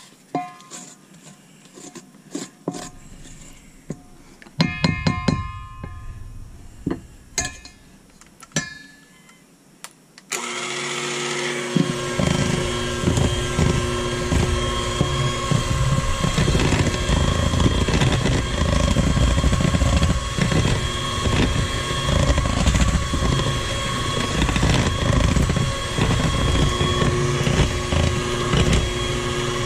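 A spatula knocks and scrapes against a stainless steel mixing bowl, with a few ringing clinks. About ten seconds in, an electric hand mixer switches on and runs steadily with a motor whine, its beaters churning cake batter in the metal bowl.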